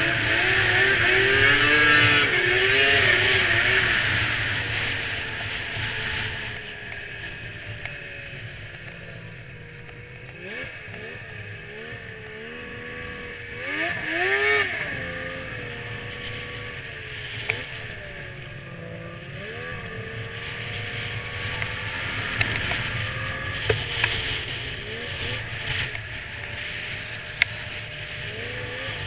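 2002 Yamaha SX Viper snowmobile's two-stroke triple engine running on the move, its pitch rising and falling as the throttle opens and eases off several times. It is loudest, with a strong rushing hiss, in the first few seconds, and a few sharp ticks come in the second half.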